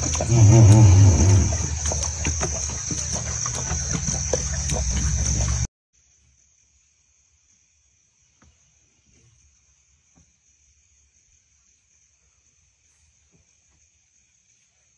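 Crickets chirping steadily at night over a low rumble, with many small irregular wet clicks of lions lapping water. The rumble is loudest in the first second or so. About six seconds in, everything cuts off abruptly to near silence, leaving only faint crickets and a few soft ticks.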